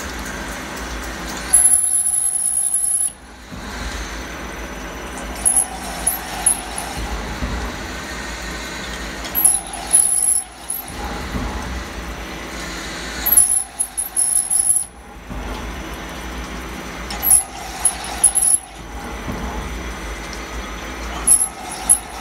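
CNC machining centre drilling metal with flood coolant in a G73 chip-breaking peck cycle: steady spindle and coolant noise, with a high drill squeal and louder cutting noise returning about every four seconds.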